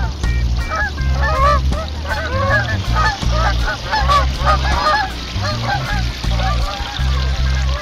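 A flock of geese honking, many short overlapping calls throughout, over a low, uneven rumble.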